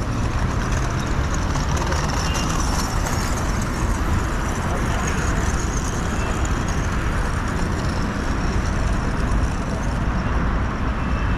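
Street traffic noise: a steady mix of car engines and tyres at a busy road intersection, heaviest in the low rumble.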